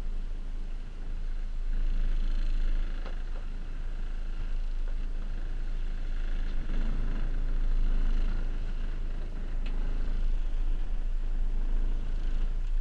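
Small cabin motor boat underway: its engine runs with a steady low drone under an even rushing noise.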